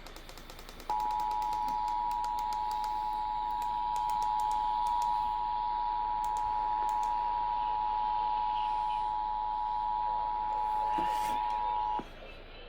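Emergency Alert System two-tone attention signal, two steady tones sounding together. It starts about a second in, holds for about eleven seconds, and cuts off sharply, over light AM radio crackle.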